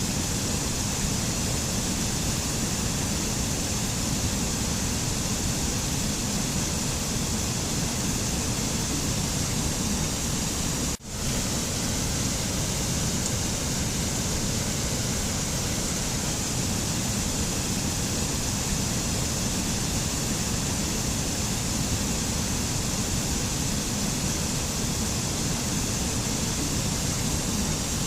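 A steady, even rushing noise of the kind used as a mountain soundscape, like falling water or wind, with no pitched sounds in it. It drops out for a split second about eleven seconds in.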